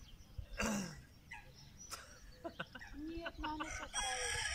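A rooster crowing: one long call that starts near the end, after a few short clucks.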